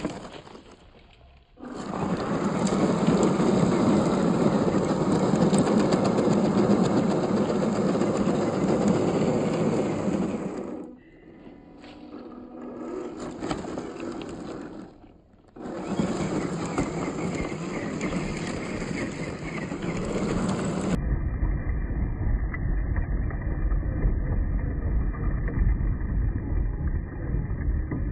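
1/12-scale MN86K G500 RC car driving off-road, its motor, gears and tyres making a rough, rumbling noise over the ground. The noise stops briefly twice, then about two-thirds of the way through turns duller and deeper, with a steady low rumble.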